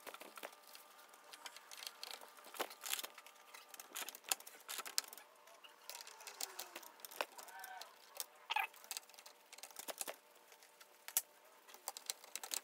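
Faint, scattered clicks and taps of RAM memory modules being handled and pushed into a desktop PC motherboard's slots, their retaining latches clicking shut.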